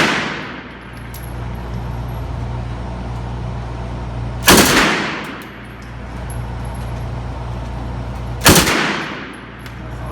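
A gun fired twice, about four seconds apart, each shot loud and sudden with an echo that dies away over about a second, over a steady low hum.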